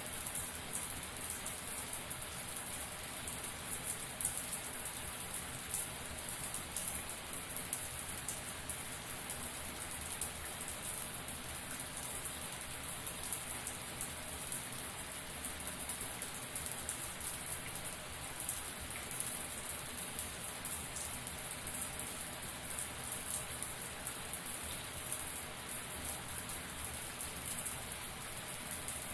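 Shower water spraying and splashing down in a steady, unbroken hiss with fine pattering of drops.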